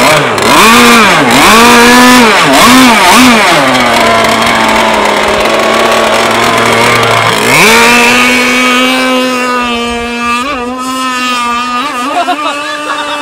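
Gasoline engine of a radio-controlled racing boat revved in quick throttle blips, then settling to a steady note. About seven and a half seconds in it climbs to a high, steady full-throttle pitch as the boat runs off across the water, wavering and fading slightly near the end.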